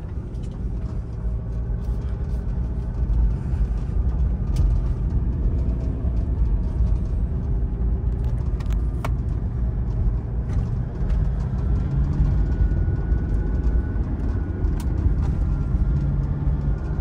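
Modified Toyota Fortuner SUV driving off-road over potholed, soft dirt, heard from inside the cabin: a steady low engine and drivetrain rumble, with a few short sharp knocks along the way.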